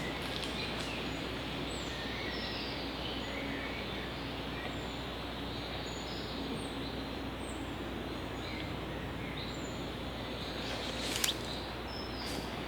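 Woodland ambience: a steady hiss of background noise with small birds chirping now and then, and a single sharp tap about eleven seconds in.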